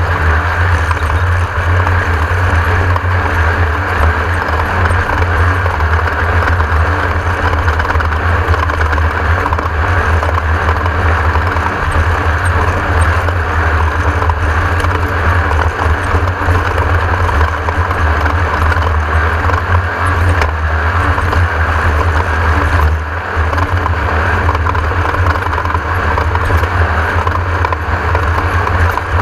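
Class 1600 desert race car with a 1600 cc air-cooled Volkswagen engine, running hard at speed: a loud, steady engine drone with a deep rumble under a broad noise from the drivetrain and terrain, easing briefly about two-thirds through.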